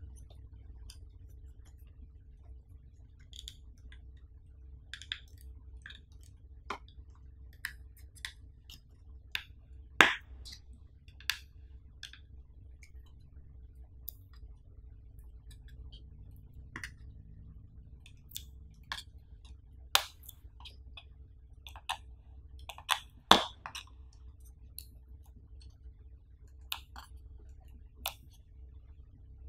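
Fingers and nails handling a cardboard smartphone retail box and picking at its side seal: scattered sharp clicks and taps, the loudest about ten, twenty and twenty-three seconds in, over a low steady hum.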